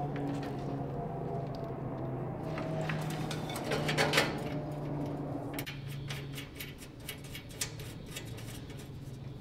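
An ignition switch and its wiring being worked by hand into a sheet-metal switch box: rustling and rattling against the metal, loudest about four seconds in, then a run of light clicks through the second half as the switch is seated. A steady low hum runs underneath.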